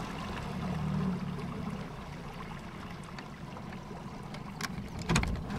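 Small waves lapping and trickling against the side of an aluminium boat, with a faint low hum fading out in the first second or so and two light knocks near the end.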